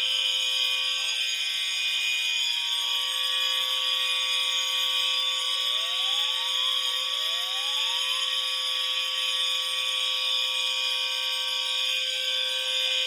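Several fire alarm horns sounding together without a break, a steady shrill blare. A few faint rising tones come through about halfway.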